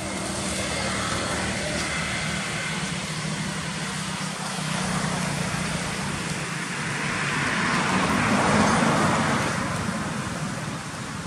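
Road traffic running steadily, with a vehicle passing that grows loudest about eight seconds in and then fades.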